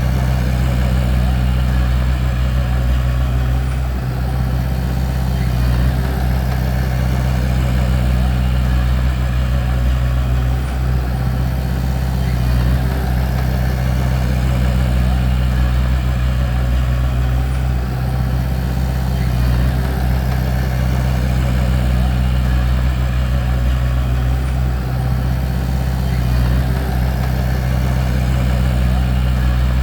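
Bulldozer's diesel engine running steadily, a deep even drone that holds at one pitch.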